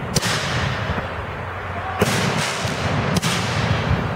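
Aerial fireworks bursting overhead: three sharp booms, one near the start, one about two seconds in and one about three seconds in, each trailing off in a fading crackle, over a continuous low rumble.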